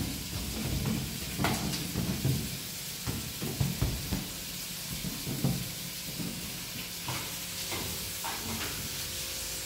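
A steady hiss with light knocks and clicks scattered through it.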